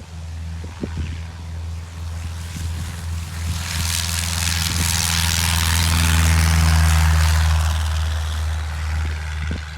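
Cessna 120 light taildragger's piston engine and propeller at full takeoff power on a short-field takeoff roll, running steadily, growing louder to its loudest about six to seven seconds in, then easing off.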